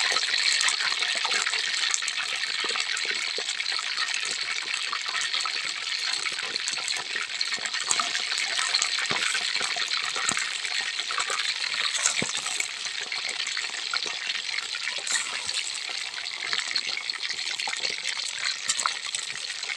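Pieces of eel deep-frying in hot oil in a wok: a steady sizzle dotted with many small crackles and pops as the oil spatters.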